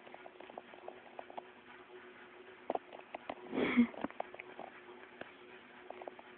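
Cockatiel pecking and scratching at a phone held close to it: a scattered run of small, sharp clicks, with one louder brief rustling noise a little past the middle.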